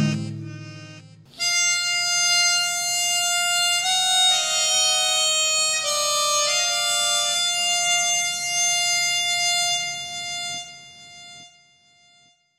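Music: a slow melody of long, held notes that begins about a second and a half in and fades out near the end.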